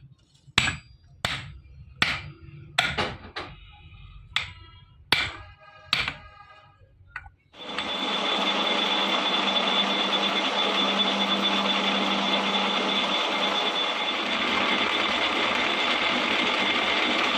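Hammer blows on metal, about eight strikes roughly a second apart, some of them ringing. About seven and a half seconds in, an electric power tool starts and runs steadily with a high whine.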